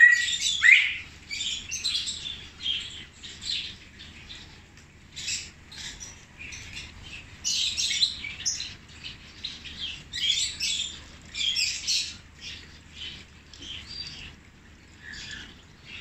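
Many small aviary birds chirping and calling, short overlapping chirps coming in irregular clusters, with a loud rising call at the very start.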